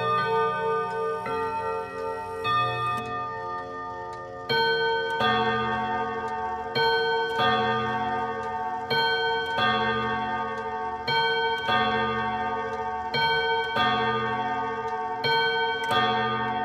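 1962 ODO 24/10 chiming clock's ten hammers striking its ten steel rod gongs, playing its quarter-hour carillon melody, each note ringing on over the next. The strikes grow louder about four and a half seconds in, with the clock's ticking underneath.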